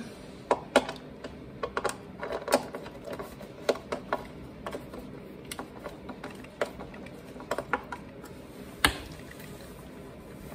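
Light, irregular clicks and taps of a small hand tool turning a screw back into a backpack blower's engine housing, with one sharper click near the end.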